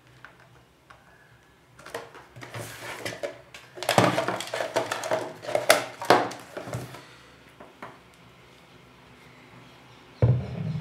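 Hands handling speaker cables, a speaker cabinet and a phone on a table: rustling, knocks and clatter for about five seconds, then a pause. Near the end a home theatre subwoofer suddenly starts playing bass-heavy music.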